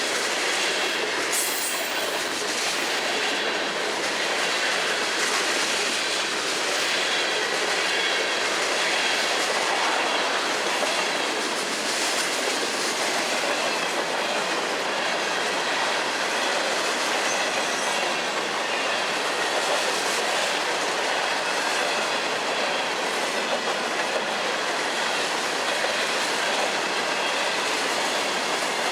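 Long FEC freight train's cars rolling steadily past, their wheels clattering on the track, with a faint high squeal from the wheels.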